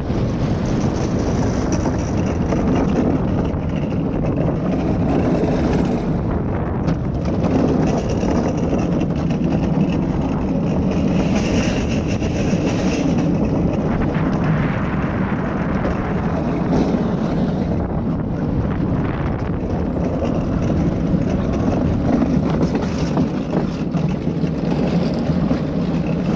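Skyline Luge cart rolling down the track: a steady rumble from its wheels, with wind buffeting the microphone.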